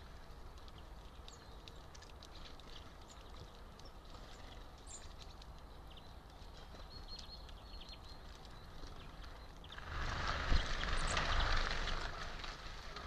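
A squirrel feeding at a basket of sunflower seeds, with many small crisp clicks as it cracks the seeds. About ten seconds in comes a louder rustling, rushing noise with a low rumble, lasting a couple of seconds.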